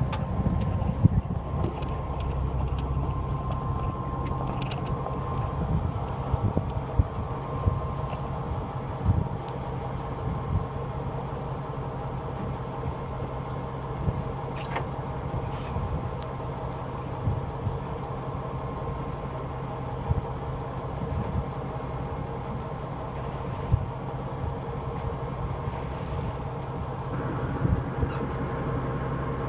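Steady low drone of a fishing boat's machinery running, with a few short clicks and knocks scattered through.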